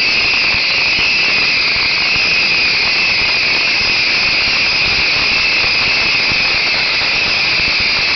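Massed bottle rockets firing continuously from a beehive fireworks rack: a loud, unbroken hiss and crackle of countless small rockets going off at once.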